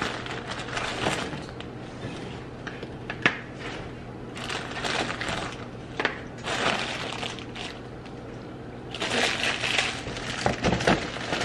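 Kitchen handling noises at a counter: rustling and crinkling in bursts, with a sharp knock about three seconds in, over a steady low hum.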